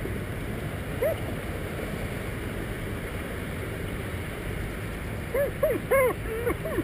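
Steady rushing wind and rub noise on a GoPro strapped to a greyhound's back. A dog gives a short whining yelp about a second in, then a quick run of about five yelps near the end.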